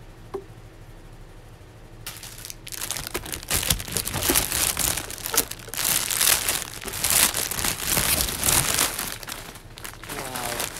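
Clear plastic bag crinkling and rustling as a garment is handled in it. It starts about two seconds in and fades near the end.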